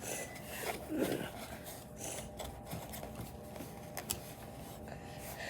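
Faint rubbing and scraping of hands working kinetic sand, with a few small clicks, one sharper about four seconds in.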